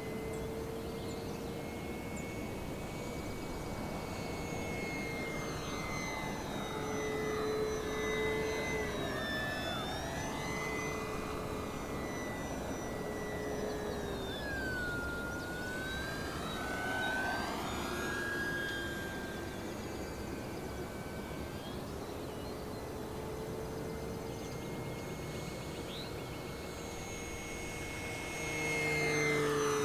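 Brushless electric motor and propeller of an FMS 1500mm Cessna 182 foam RC plane flying on a 3-cell LiPo: a steady whine that shifts in pitch as the plane passes, dropping clearly about halfway through and growing louder about 8 seconds in and again near the end.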